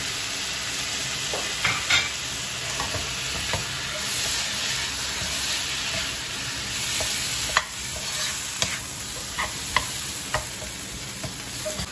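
Chopped tomatoes and shallot-spice masala sizzling in hot coconut oil in a non-stick frying pan while being stirred with a plastic spatula. A steady sizzle runs under sharp scrapes and taps of the spatula on the pan, more frequent in the second half.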